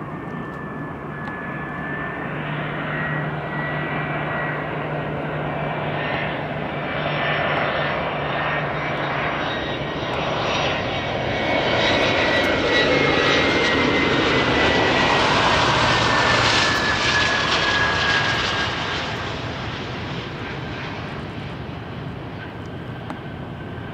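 Boeing 717 twin rear-mounted turbofans on landing approach: a jet rumble with a high whine that swells to its loudest as the airliner passes about halfway through. The whine falls in pitch as it goes by, and the sound then fades as the plane reaches the runway.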